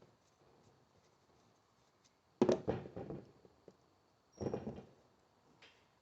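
Two short bursts of clicking and clattering, about two seconds apart, from tools and small carburetor parts being handled.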